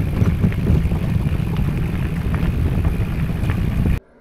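Loaded touring e-bike and trailer rolling fast down a steep gravel track: a loud rumble of tyres on loose dirt and stones with constant small rattles from the bike and trailer. It cuts off suddenly near the end.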